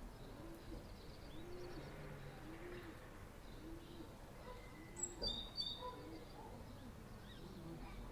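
A pigeon cooing softly in a steady, repeated series of low arched notes. Small birds chirp briefly about five seconds in, and those chirps are the loudest moment.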